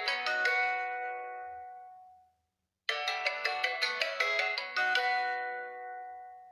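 Xiaomi Redmi 6A MIUI phone tone: a quick run of pitched notes that rings out and fades, then plays again about three seconds in.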